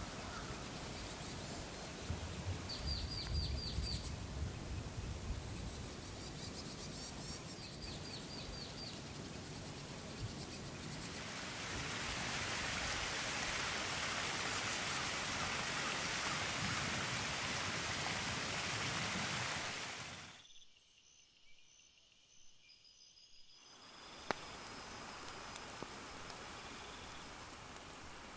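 Outdoor nature ambience: a steady hiss with two short runs of bird chirps in the first few seconds. The hiss swells louder for several seconds, drops almost to quiet for a few seconds, then returns.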